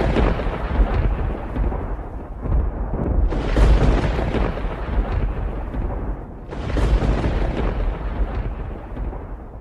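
Thunder: a rolling rumble, then two more claps about three seconds apart, each a sudden crack that fades into a long, deep rumble.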